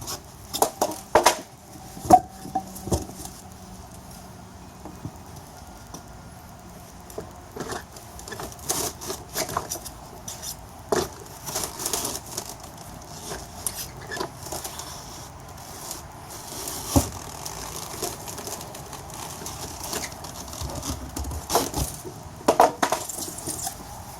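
Wooden 2x4 boards levered against a metal box to break a motorcycle tire's bead from the rim: scattered knocks, clicks and creaks, with sharper knocks about two seconds in, in the middle, and near the end.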